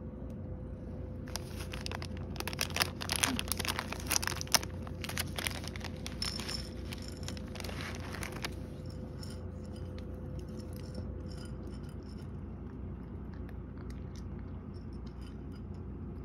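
Plastic treat bag crinkling and rustling as it is handled, with treats clattering onto a ceramic dish, for about seven seconds. After that, faint crunching as a cat eats the dry treats from the dish.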